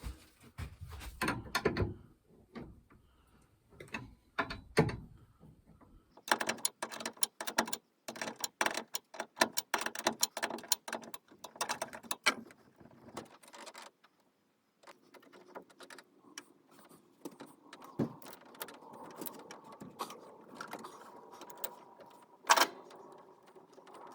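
Clanks and knocks of metal parts on an air hose reel as its leaking swivel joint is worked loose. These give way to several seconds of fast ratchet-like clicking, then a faint steady hiss with one sharp click near the end.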